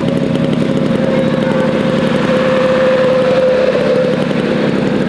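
Small engine running steadily at a constant speed, with an even rumble and a held tone.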